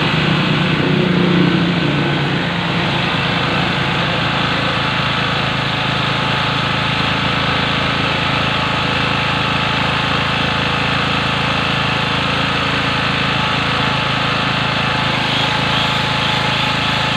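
Badja BG3200L petrol generator running steadily, a little louder for the first couple of seconds before settling to an even run.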